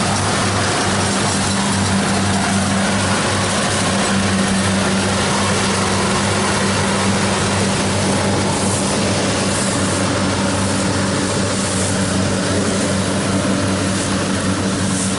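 Kubota DC60 combine harvester running steadily: a constant engine hum with a dense wash of mechanical noise over it.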